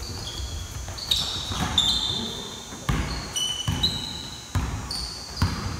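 Basketball game play on a court: sneakers squeak repeatedly in short, high chirps while the ball thuds against the floor several times.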